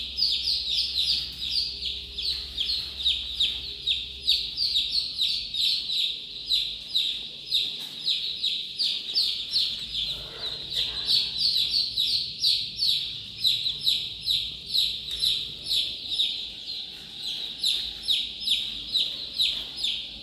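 A large flock of chicks peeping nonstop: a dense chorus of short, high, falling peeps overlapping several times a second.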